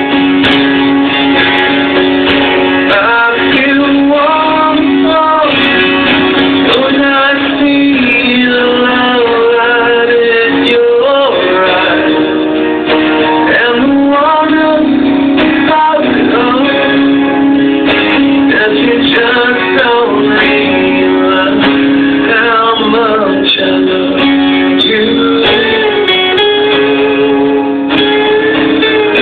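Live rock-ballad performance: a man singing over strummed guitar, played continuously through the whole stretch.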